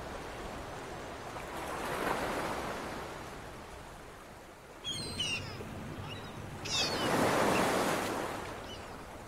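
Ocean surf washing ashore, swelling up about two seconds in and again, louder, about seven seconds in. Short high gull calls break in around the middle.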